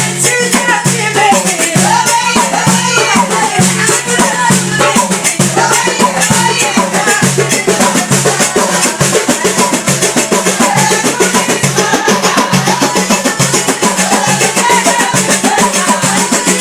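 Song with a woman singing over a steady drum beat and a rattling shaker.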